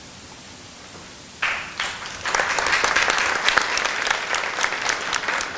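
Applause, starting abruptly about a second and a half in with a few claps, then filling out into steady clapping from about two seconds in.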